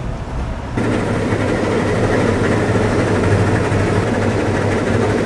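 Combine harvester running steadily, a continuous low machine drone with a deep hum. It steps up louder about a second in and then holds steady.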